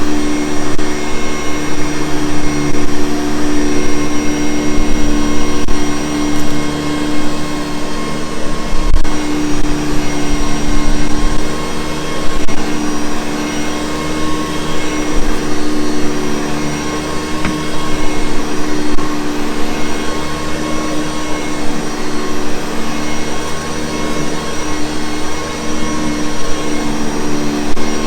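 Vintage Hoover Convertible U4387 upright vacuum cleaner running steadily, a continuous motor hum and rush of air with a steady pitched drone, its loudness wavering slightly.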